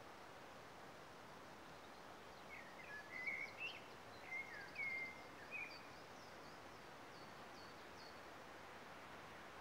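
Faint, steady wind hiss through the woodland canopy, with a songbird singing a short phrase of whistled, slurred notes from about two and a half seconds in. Thinner, higher notes follow until near the end.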